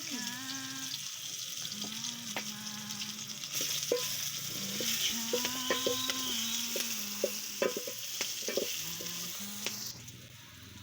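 Food frying and sizzling in a pan, with sharp clicks and knocks of a utensil stirring it; the sizzle drops away near the end.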